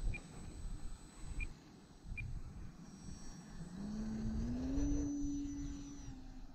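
Brushless electric motor and propeller of an E-flite Leader 480 RC plane throttling up for takeoff: a whine that climbs in two steps about three and a half seconds in, then holds steady. Wind buffets the microphone throughout, and a few short high beeps come in the first two seconds.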